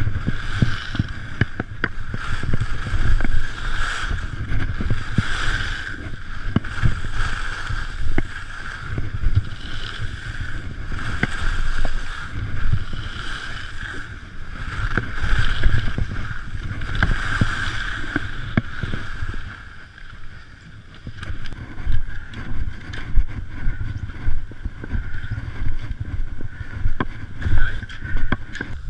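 Skis sliding and scraping over snow on a downhill run, with wind rumbling on the camera's microphone. The sound swells and fades over and over and drops lower for a moment about twenty seconds in.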